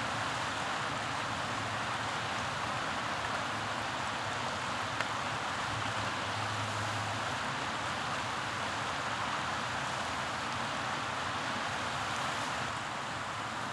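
Fast-flowing river rushing steadily over a rocky bed, with one light click about five seconds in.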